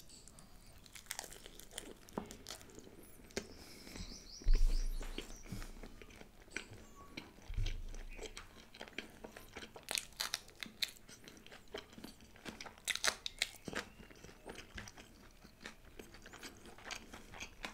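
Close-miked chewing of a large mouthful of paratha with chicken: a run of wet crunching and smacking clicks, with two dull low thumps about four and a half and seven and a half seconds in.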